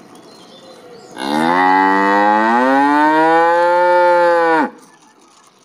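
A cow mooing: one long, loud moo of about three and a half seconds starting about a second in, rising slowly in pitch and dropping sharply as it ends.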